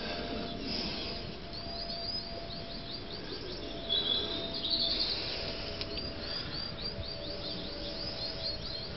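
A small songbird singing nearby: two runs of quick, repeated high chirps, over a faint steady hum and low background noise.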